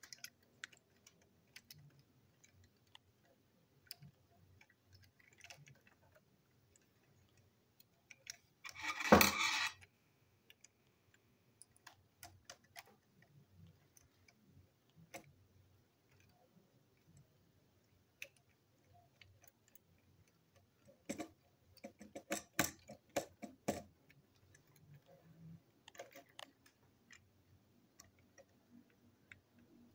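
Small plastic clicks and ticks as a Plarail toy train's motor unit is handled and screwed back together with a small screwdriver. A louder noise lasting about a second comes about nine seconds in, and a run of sharper clicks comes around twenty-two seconds in.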